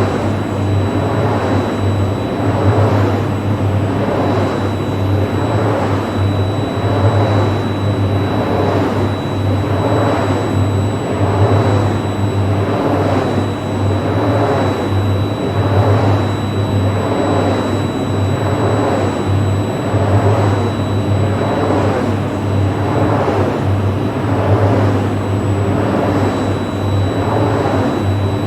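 Wind turbine running: the blades sweep past with a whoosh that swells about once a second, over a steady low hum and a faint steady high whine.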